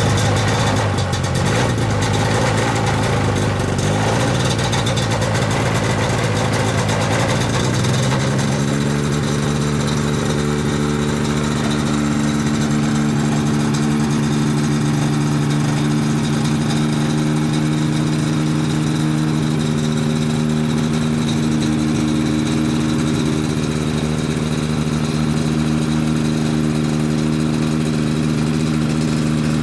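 Snedden M7 ultralight aircraft's engine and propeller running just after a start. The engine speed is uneven for the first several seconds, then about eight seconds in it settles into a steady idle.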